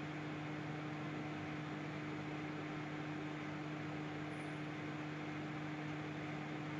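Solo microwave oven running: a steady electrical hum with fan noise, unchanging throughout.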